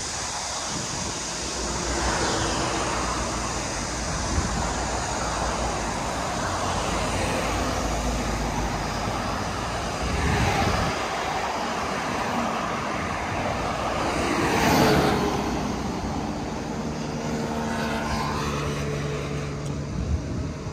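Street traffic: cars passing on a multi-lane road, one after another swelling up and fading, over a steady low rumble. The loudest pass comes about fifteen seconds in.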